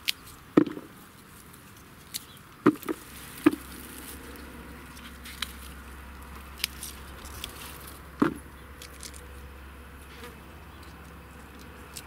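Pea pods being picked by hand from the vines: rustling stems and leaves with a handful of sharp snaps and knocks, and an insect buzzing nearby.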